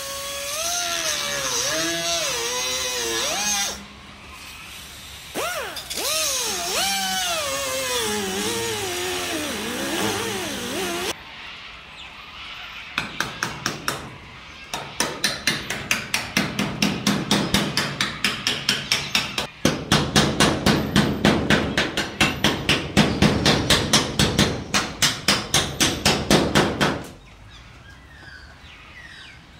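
Hammer blows driving a chisel into the spot-welded and brazed roof seam of a 1961 Volkswagen splitscreen bus, a steady run of about three or four sharp strikes a second through the second half, stopping a few seconds before the end. Before that, a loud wavering high-pitched squeal sounds twice.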